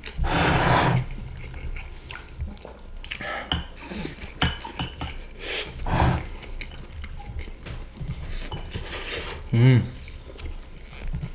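Metal spoons scraping and clinking against ceramic plates of chicken stroganoff, rice and shoestring potato sticks, in irregular scoops. The loudest scrape comes right at the start.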